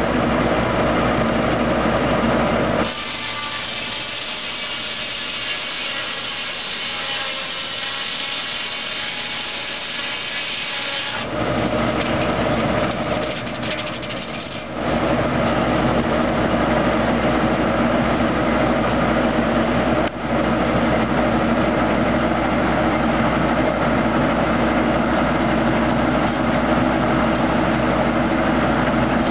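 Tractor-PTO-driven Foley Belsaw circular sawmill running, its large circular blade sawing through a log as the carriage feeds it, over a steady engine hum. The sound changes abruptly about three seconds in, turning thinner and quieter, and returns to the full hum from about eleven seconds in.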